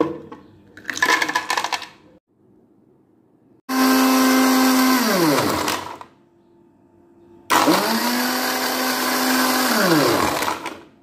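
Electric blender grinding mint leaves, sugar, lemon juice and ice into a paste in two short runs, the second a little longer. Each run is a loud, steady motor hum that sinks in pitch as the motor coasts to a stop. A brief clatter comes about a second in, before the first run.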